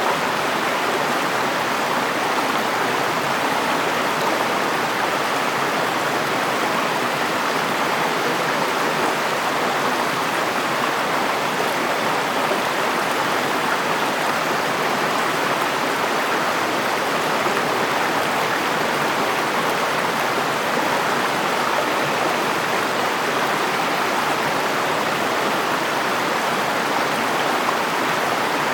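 A river flowing steadily: an even, unbroken rush of running water.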